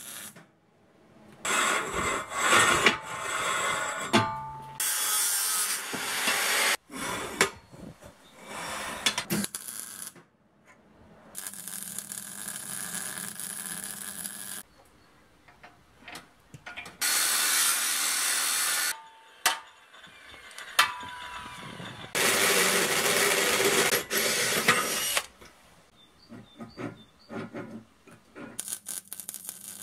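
MIG welder laying several short welds on steel tubing, each a few seconds of even hissing noise that starts and stops abruptly. Short knocks and clicks from handling the steel parts come between the welds.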